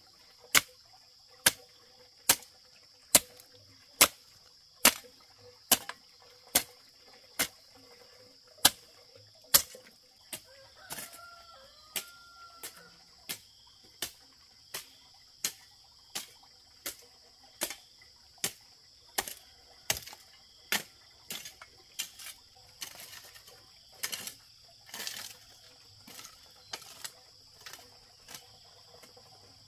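A hand tool striking in a steady rhythm, a little over one blow a second, loud at first and softer from about ten seconds in, over a steady high insect drone; a chicken calls briefly about eleven seconds in.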